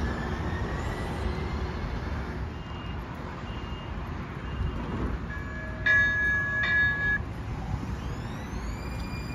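LYNX Blue Line light-rail train pulling slowly into the station, its electric drive whining faintly, with three short high beeps and then, about six seconds in, a loud warning tone held for just over a second.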